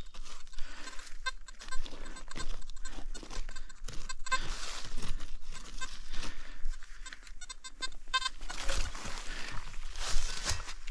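A small hand digger chopping and scraping into stony forest soil and dry leaf litter, with repeated uneven strikes and the rustle of loosened earth and leaves: digging down to a deep metal detector target.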